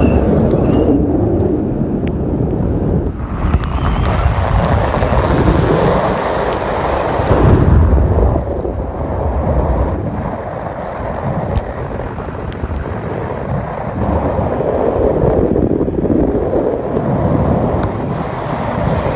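Wind buffeting the microphone from a moving car, swelling and easing in gusts, over tyre and road noise on wet pavement.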